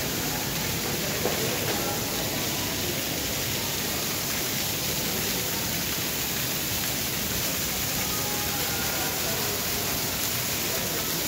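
Heavy rain falling, with water pouring off an overhead metal truss and splashing onto the wet deck: a steady hiss.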